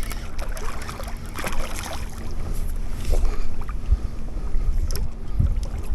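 Wind buffeting the microphone on a small boat: an uneven low rumble with a faint steady hum underneath and a few short rustles and knocks from handling.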